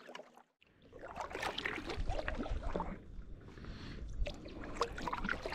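Kayak paddle strokes: the blade dipping into the lake and water trickling off it, starting about a second in, with a few small clicks.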